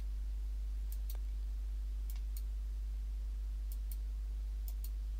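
Four pairs of light clicks, the press and release of a computer mouse stepping through slide animations, over a steady low electrical hum.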